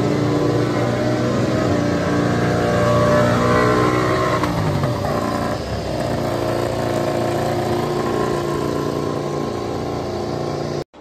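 MotoGP race bike engine running at high revs in the pit lane. The revs fall away once about four to five seconds in, then hold steady.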